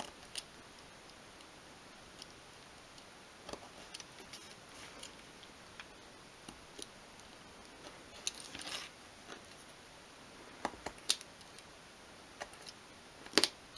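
Craft knife cutting a thin strip of obeche wood on a cutting mat: faint scattered clicks and short scraping cuts, with a longer scrape about eight seconds in.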